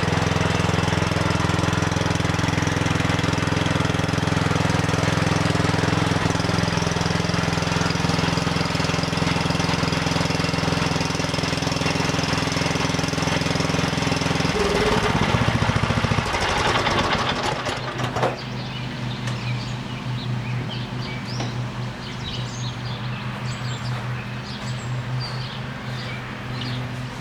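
An engine running steadily. About fifteen seconds in its sound breaks up, and it settles into a quieter, lower hum.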